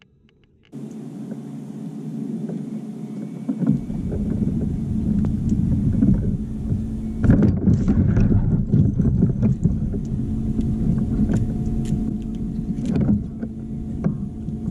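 Steady hum with water and wind noise aboard a pedal-drive fishing kayak under way, starting abruptly about a second in, with a low rumble joining a few seconds later. A few louder knocks come about halfway and near the end.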